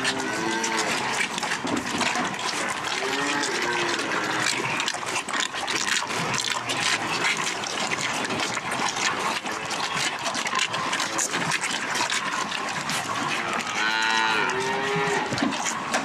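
Dairy calves bawling, a few calls near the start, one about three seconds in and a longer run of calls near the end, over constant small knocks and rustling.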